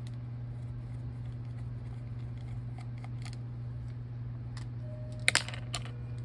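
Steady low hum with a few faint ticks, and a sharp double click about five seconds in, from hands and small tools handling the parts of an opened laptop.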